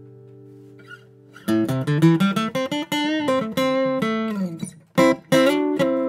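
Taylor 110 steel-string dreadnought acoustic guitar played fingerstyle. A held chord rings out and fades for the first second and a half. Then picked notes and chords resume, breaking off briefly just before five seconds in.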